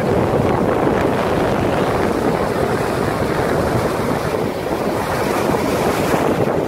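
Strong hurricane wind buffeting the microphone in a steady rush, over heavy surf breaking and churning on a rocky shore.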